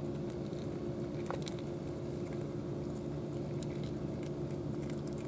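Cats eating dry kibble from plastic bowls: many small, irregular crunching clicks, over a steady low hum.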